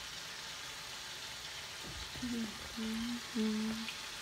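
Shrimp frying in hot oil in a small skillet, a steady sizzle. About two seconds in, a woman hums three low held notes over it.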